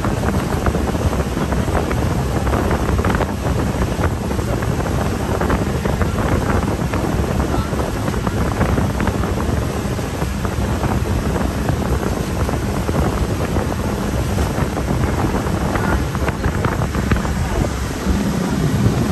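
Boat engine running steadily, with wind rushing over the microphone.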